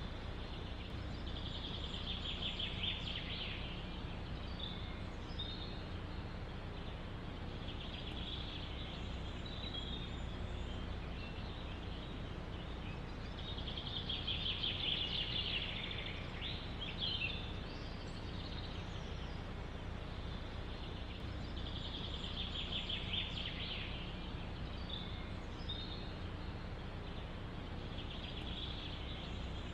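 A songbird repeats a short trilled song of a second or two, about every six seconds, five times in all. Behind it runs a steady rush of wind through forest trees.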